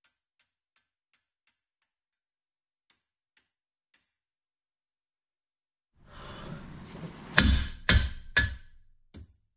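Light clicks, about three a second, for the first four seconds. Then handling noise and four mallet blows on the lower control arm's mounting bolt, three quick ones and a fourth a moment later, tapping a bolt that won't line up into its bushing.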